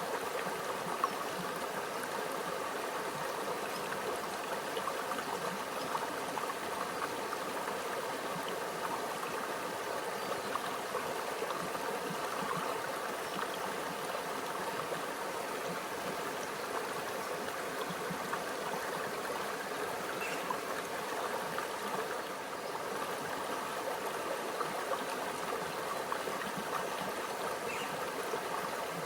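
Shallow stream flowing steadily, water gurgling and trickling over rocks.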